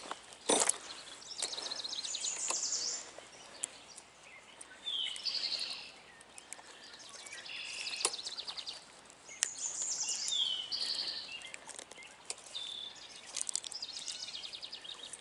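A songbird singing the same short phrase about every five seconds, a falling whistled note followed by fast high trills. A sharp knock comes about half a second in, with a few fainter clicks.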